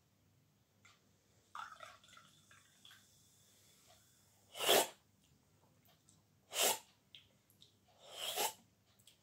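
Three short, loud slurping sips from an aluminium soda can, each lasting about half a second and spaced about two seconds apart. Before them, about a second and a half in, there is a fainter bit of pouring and handling.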